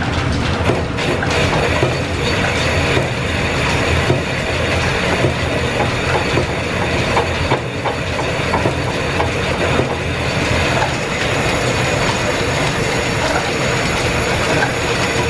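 Belt-driven line-shaft machine tools running steadily, with frequent light clicks over a continuous mechanical rumble.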